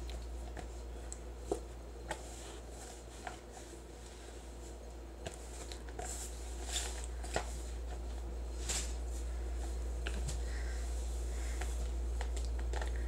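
Hands squeezing and rubbing a crumbly flour-and-baby-oil moon sand mixture in a plastic tub: soft, irregular rustles, crunches and small taps, over a steady low hum.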